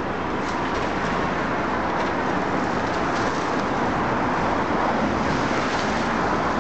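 Demolition excavator's engine and hydraulics running steadily, its crusher jaws working at a brick wall, with a few faint knocks.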